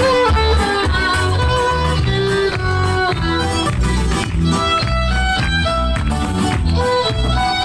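Violin playing a lively melody of held and sliding notes over a backing with a steady bass line.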